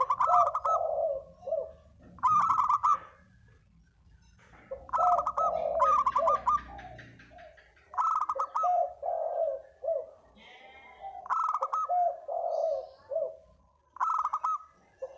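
Derkuku dove (a turtle dove) cooing a repeated call six times. Each phrase is a few higher opening notes followed by a quick run of lower, rolling coos, which makes it a calling song of the kind used to lure other doves.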